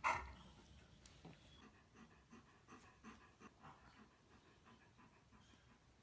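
A dog panting faintly in short repeated breaths, after a brief louder sound right at the start.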